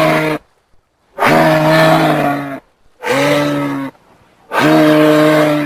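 Giraffe vocalizing in a series of loud, drawn-out calls of steady pitch, each about a second long with short pauses between. The tail of one call is followed by three more.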